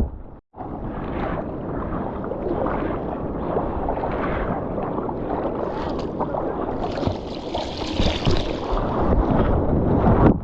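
Wind buffeting the microphone over the wash of ocean surf, a steady rumbling noise with a swell of hiss a few seconds before the end. The sound drops out briefly about half a second in.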